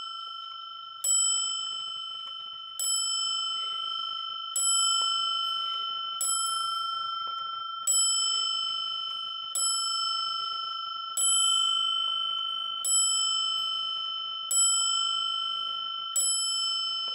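The hammer of a Dutch Sallander wall clock's strike train hitting its brass dome bell ten times, about one strike every second and three-quarters. The bell rings on steadily between strikes.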